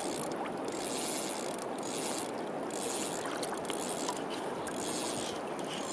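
Fly reel's drag buzzing continuously as a hooked Atlantic salmon pulls line off the spool, its high edge thinning and returning about once a second.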